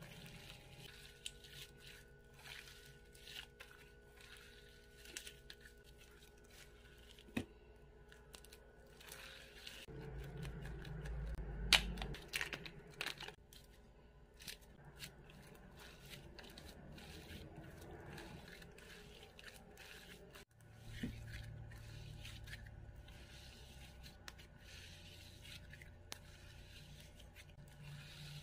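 Slime being squeezed, pinched and stretched by hand, giving soft sticky crackles and tearing sounds as the fluffy, cotton-like slime pulls apart. The crackling grows louder for a few seconds about a third of the way in and breaks off suddenly about two thirds of the way through.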